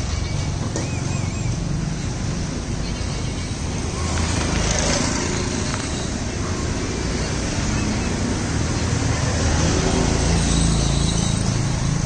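Steady low background rumble, with a faint short chirp about a second in.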